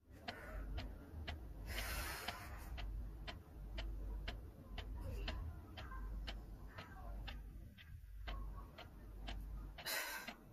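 Regular ticking, about two ticks a second, over a low steady rumble, with a short hiss about two seconds in and another near the end.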